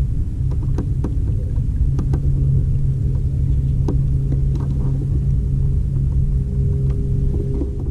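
Steady low rumble with a constant low hum, and a scattering of faint thin clicks.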